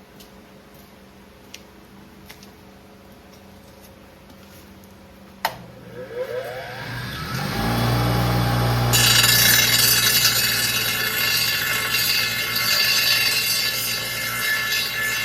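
An electric angle grinder switched on with a click about five seconds in, its motor whining up to speed, then grinding steel tube from about nine seconds on with a loud, steady hiss.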